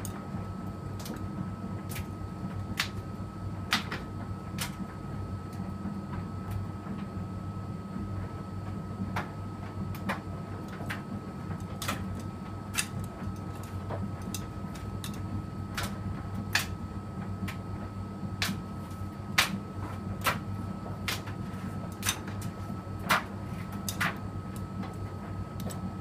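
Electrolux front-loading washing machine running a cotton wash cycle, its drum tumbling the laundry: a steady low hum with a thin high whine, and irregular sharp clicks every second or two.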